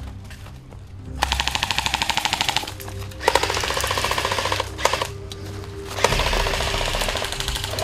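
Airsoft rifles firing on full auto: three rattling bursts of rapid, evenly spaced shots, the first about a second in and the last running on near the end, over background music.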